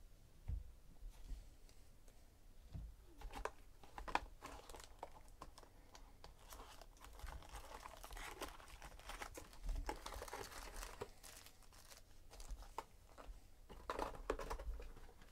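A cardboard hobby box of trading cards being opened and its foil-wrapped card packs pulled out and handled, with crinkling and tearing noises and sharp clicks starting a few seconds in.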